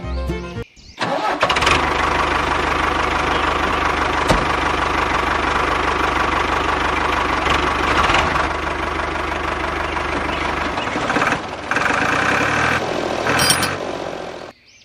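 A motor running steadily with a low hum, starting abruptly about a second in, changing after about ten seconds and cutting off just before the end.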